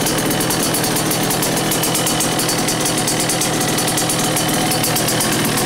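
A 2012 Suzuki RM85's 85cc two-stroke single, fitted with a full Pro Circuit exhaust pipe, running steadily at idle, with a fast even crackle.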